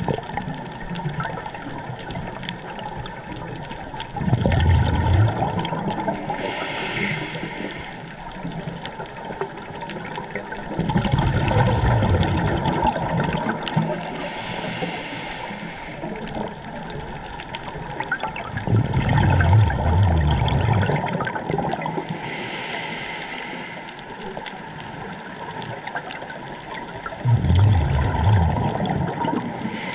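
A scuba diver breathing through a regulator underwater, heard from the diver's own camera: four loud bubbling exhalations about seven to eight seconds apart, with a softer hiss between them.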